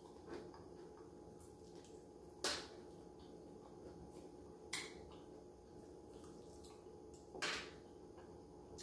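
Quiet eating of a fried-chicken meal: three short, sharp noises about two and a half seconds apart, with a few fainter ones, over a low steady hum.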